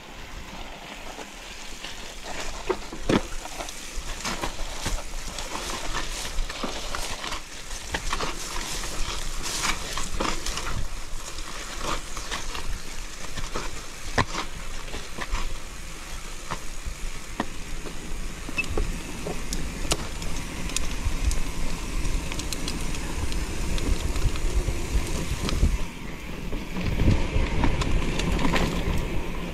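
Mountain bike riding over a loose, rough dirt trail: tyres crunching on the surface and the bike rattling in many small irregular clicks and knocks. Wind rumbles on the microphone near the end.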